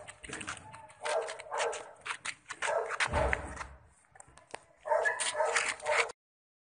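Puppy yipping and barking in short bursts, with a low thump about three seconds in; the sound cuts off suddenly near the end.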